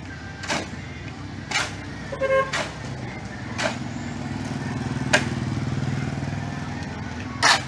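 Steel shovel scraping across a concrete slab about once a second while a pile of cement, sand and gravel is turned by hand. A motorcycle engine passes, swelling from about three seconds in and fading near the end.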